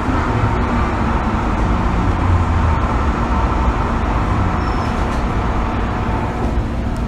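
Steady running rumble heard inside the cabin of an MTR M-Train electric multiple unit as the car rolls along the track.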